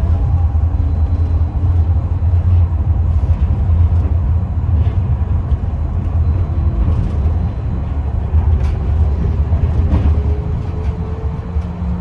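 Tram running along the line, heard from on board: a steady low rolling rumble of wheels on rails, with light rattles and clicks. In the second half a faint whine rises slowly in pitch.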